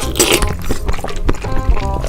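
Background music with quick, short notes, over scattered clicks.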